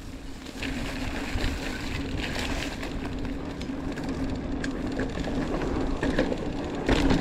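Orbea Occam mountain bike rolling over a bumpy dirt trail: tyre noise and drivetrain rattle with scattered knocks from the bumps, over a steady hum. Wind rumble on the microphone underneath.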